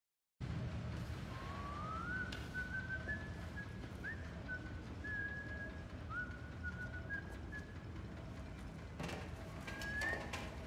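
A whistled line of high held notes linked by short upward slides over a steady low rumble of factory machinery, with a few sharp metallic clanks near the end. It starts abruptly after a moment of silence.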